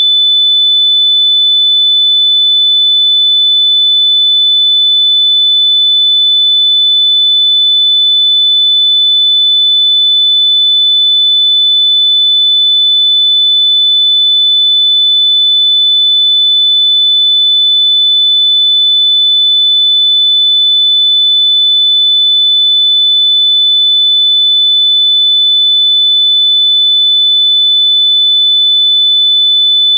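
A continuous high-pitched electronic sine tone, loud and perfectly steady in pitch and level, with no breaks.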